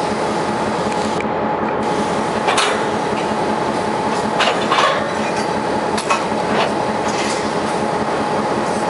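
Railroad tank cars rolling slowly along the track: a steady rolling noise with scattered sharp clicks and clanks from the wheels and running gear.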